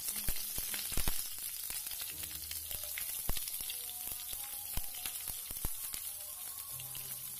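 Garlic, shallots and kaffir lime leaves frying in hot oil in a frying pan: a steady sizzle with many scattered crackles and pops.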